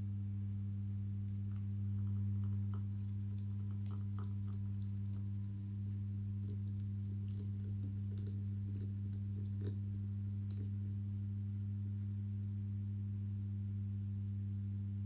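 Steady low electrical hum, with scattered faint small clicks and taps from small model parts and screws being handled and fitted.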